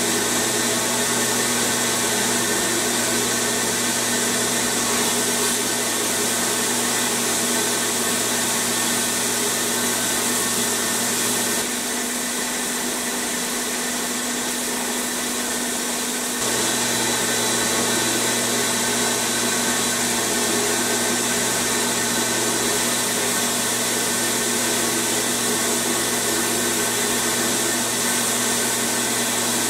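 Abrasive blast cabinet in use: a steady hiss of air and abrasive from the blast gun as it strips rust and old paint off a pressed-steel toy truck part. Beneath it runs a steady low hum, which drops out for about five seconds roughly twelve seconds in.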